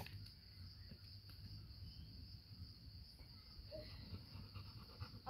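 Steady high-pitched insect chorus, such as crickets, buzzing without a break over a faint low rumble.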